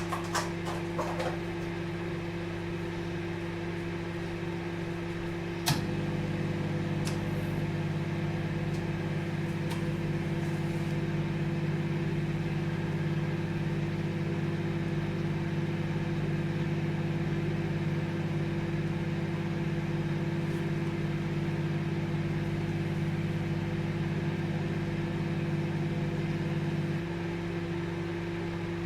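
Microwave oven running with a steady hum, a few light clicks at the start. About six seconds in a sharp click brings in a louder buzz over the hum, which drops away near the end, the oven's relay switching its heating on and off.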